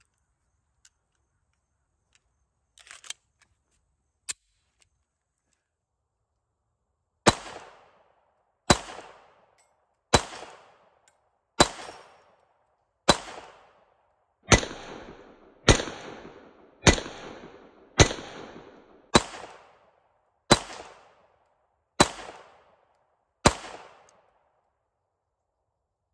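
Double-stack IJ70-18AH Makarov pistol in 9×18mm fired thirteen times at a slow, even pace, about one shot every one and a half seconds, each shot trailing off in an echo. A few clicks come earlier, as the pistol is loaded.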